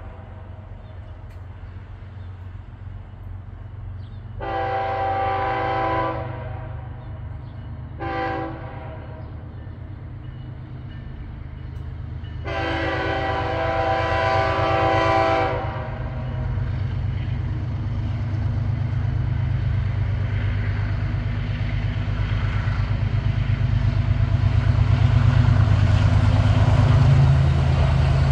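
Diesel locomotive air horn on an approaching BNSF freight train, sounding a long blast, a short one, then a long one: the end of the standard long-long-short-long grade-crossing signal. Under it the low rumble of the diesel locomotives grows steadily louder as they draw near and pass.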